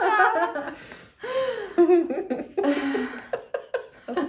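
Two women laughing heartily in several bursts, with a quick pulsing laugh at the start.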